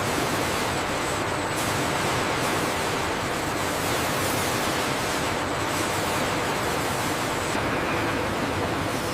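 Sawmill machinery noise: a steady, even rushing hiss with a faint high whine.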